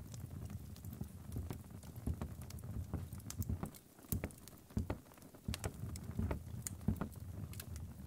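Horse hooves clopping unevenly, a few knocks a second and irregularly spaced, over a steady low rumble.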